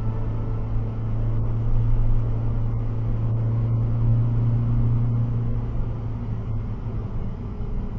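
Car engine and tyre noise heard from inside the cabin while driving at steady speed: a continuous low drone.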